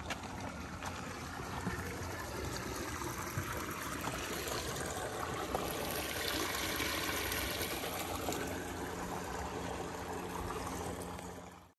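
Water running through a narrow gap between concrete blocks in a small ditch, a steady trickling rush that grows louder in the middle and cuts off suddenly near the end.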